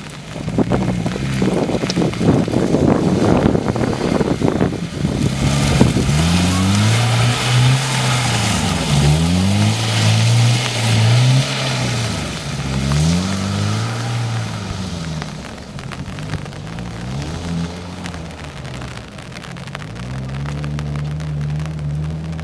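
An off-road car's engine revving up and down again and again, as under load on rough ground. Loud rushing, crackling noise covers roughly the first five seconds. The engine settles to a steady run near the end.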